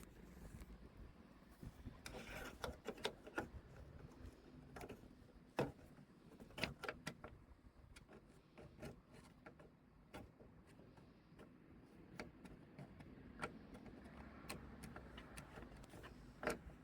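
Faint, irregular clicks and taps of a slim Phillips screwdriver fumbling at and turning the hard-to-reach captive screws of a tail light assembly, metal on screw and plastic, over a low hum.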